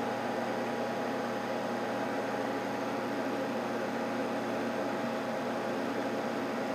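Kelant Combat S500 resin 3D printer homing: its Z-axis stepper motor drives the build plate slowly down, giving a steady whining hum with fixed tones and no change in pitch.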